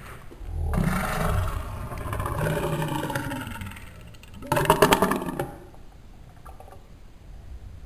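A burp slowed down in slow motion, drawn out into a long, deep, growling sound for about three seconds, then a shorter, louder rattling burst about four and a half seconds in.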